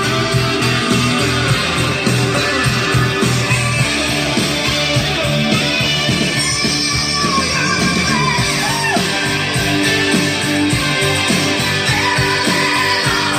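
Rock music with guitar playing loudly and steadily, with some singing.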